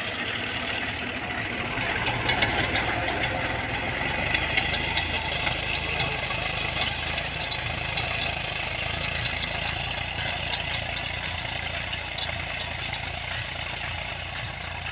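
Sonalika tractor's diesel engine running steadily as it pulls a seed drill through dry tilled soil, with scattered light clicks and rattles from the drill's frame and tines. It grows slightly fainter toward the end as the tractor moves away.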